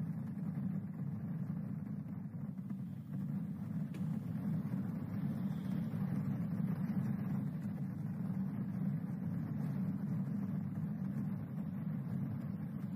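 Low, steady rumbling noise from a horror video's soundtrack played back on a computer; it has no clear pitch and cuts off suddenly when the video ends.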